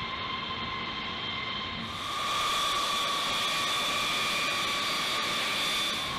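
Boeing B-52 bomber's jet engines running as the aircraft taxis: a steady rushing noise with a high whine over it. About two seconds in it grows louder and brighter.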